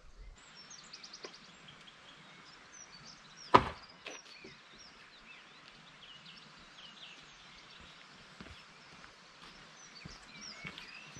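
Small birds chirping and singing over a faint steady outdoor hiss, with one loud sharp knock about three and a half seconds in, and a few light ticks from footsteps on the crossing later on.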